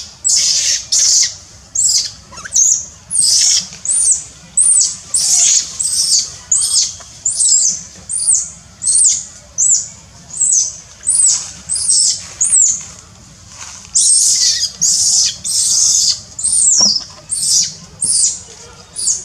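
Baby macaque screaming in distress: a rapid, even run of shrill, high-pitched squeals, each rising and falling in pitch, about one and a half a second.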